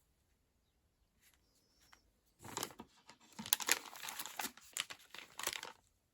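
Packaging being handled, crinkling and rustling, starting about two and a half seconds in and stopping shortly before the end.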